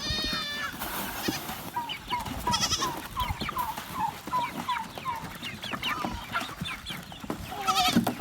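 Farmyard flock at the grain: chickens clucking in short, quick calls throughout, with goats bleating over them in a long wavering bleat at the start, a short one a couple of seconds in, and another near the end.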